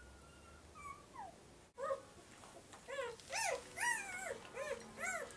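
Newborn Wetterhoun puppies, a few hours old, squeaking as they nurse: faint peeps at first, then from about two seconds in a run of loud, short whines that rise and fall in pitch, about two a second.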